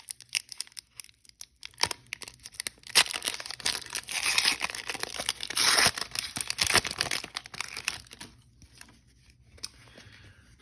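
A foil trading-card pack being torn open and its wrapper crinkled, with cards rustling and clicking as they are handled. The crackling is busiest in the middle and dies away over the last couple of seconds.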